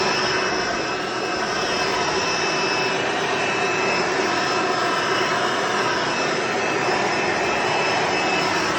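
Hoover Encore Supreme upright vacuum cleaner running steadily, its motor giving a high whine over a dense rushing of air.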